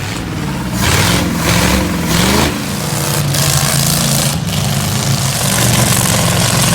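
An engine revving up and down a few times, then settling into steady running.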